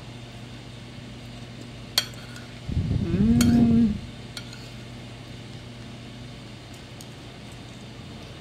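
A metal spoon clinks against a ceramic plate as food is scooped, with two sharp clicks about two and three and a half seconds in. Around three seconds in, a loud low hum rises slightly in pitch and lasts just over a second.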